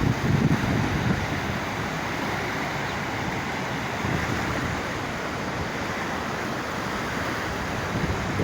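The Kunhar River's water rushing in a steady, unbroken wash of noise, with a short gust of wind on the microphone at the start.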